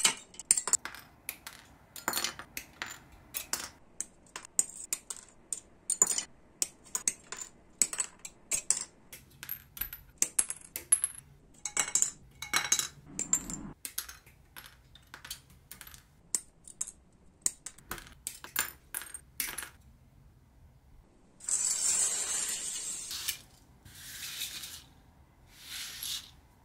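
Sprue nippers snipping plastic model-kit parts off their runners: a long irregular series of sharp clicks and snaps, with small parts clattering on the mat. Near the end come a few bursts of hissing.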